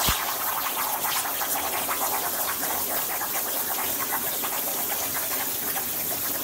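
CNC plasma torch cutting 3/4-inch steel flat bar: a steady hissing crackle with no steady pitch, and a short knock at the very start.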